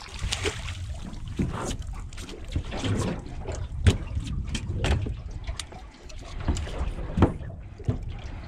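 Irregular knocks and thuds aboard a small boat, over a low rumble of wind on the microphone and water around the hull.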